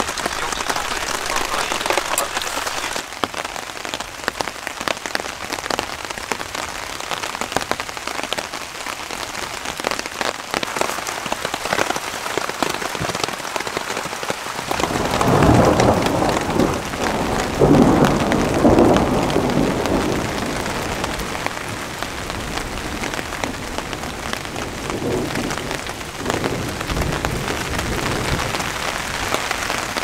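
Steady rain falling with a constant patter of drops. About halfway through, thunder rolls in, loudest in two swells a few seconds apart, then dies away over several seconds, with a fainter rumble near the end.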